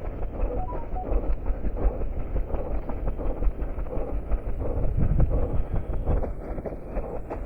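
A runner's footfalls and clothing rustle, picked up by a head-mounted camera, with wind buffeting the microphone.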